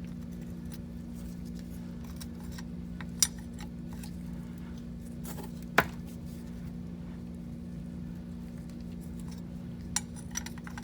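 A wrench clinking a few times against the rounded-off steel oil drain plug on a Porsche 911SC's engine sump while the tight plug is being turned, the loudest clink about halfway. A steady low hum runs underneath.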